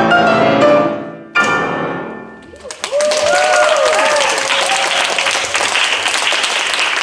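Grand piano ending a piece with loud chords: one ringing out at the start, another struck about a second and a half in and left to decay. Audience applause breaks out about three seconds in and carries on.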